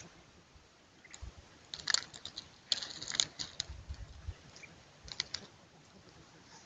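Dry leaves and dry plant matter crackling and rustling close by, in short clicky bursts, mostly between about two and four seconds in and again briefly near five seconds.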